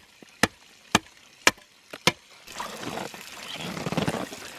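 Four sharp knocks about half a second apart, then from a little past halfway water starts pouring and running steadily, as at a frozen-over outdoor water point.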